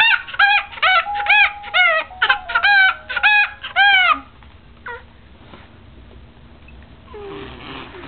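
Baby's excited, squeaky laugh: a quick run of high-pitched, rising-and-falling squeals, about two a second, that stops about four seconds in.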